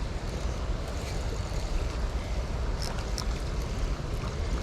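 Steady rushing outdoor noise of wind on the microphone and moving water, with a couple of faint clicks about three seconds in.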